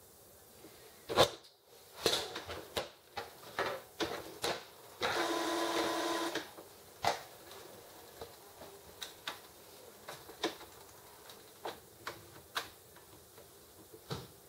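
Epson XP-605 inkjet printer's mechanism working through a cancelled copy job. A sharp click comes about a second in, followed by a run of clicks and knocks, a motor whirring for about a second and a half around the middle, and then lighter, spaced ticks.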